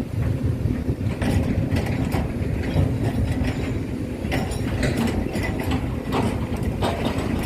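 Small electric motors and plastic gears of a radio-controlled scale model excavator and dump truck whirring steadily, with repeated clicks and knocks.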